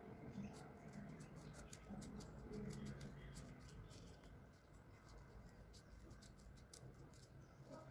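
Scissors snipping through a rolled newspaper tube: faint, irregular clicks and snips.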